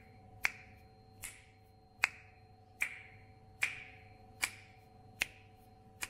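Finger snaps keeping a slow, steady beat: about eight sharp snaps, a little under one a second, over a faint steady hum.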